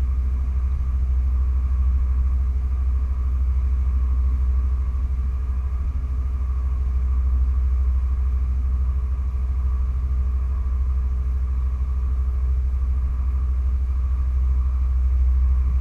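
Motor cruiser's engines running steadily at low harbour speed: a constant low rumble with a faint steady hum above it.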